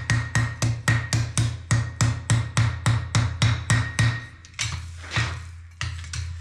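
Hand hammer striking hot steel on an anvil at a steady pace of about three blows a second, each blow ringing; the blows pause briefly a little past the middle, then resume. A steady low hum runs underneath.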